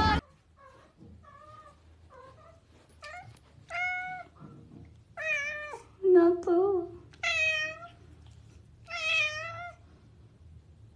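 Domestic cat meowing repeatedly: a string of short meows with a bending pitch, soft at first and louder from about three seconds in, with a lower, louder double call about six seconds in.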